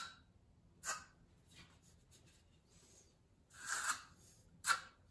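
Notched steel trowel scraping and combing tile mastic onto the back of a subway tile: a series of short scraping strokes, with a longer, louder stroke about four seconds in followed by a sharp one.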